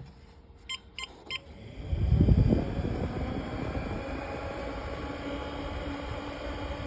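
Three short electronic beeps, then about two seconds in a homemade electric tornado siren's motor starts with a low rumble and runs on steadily, a faint held tone from the rotor coming in.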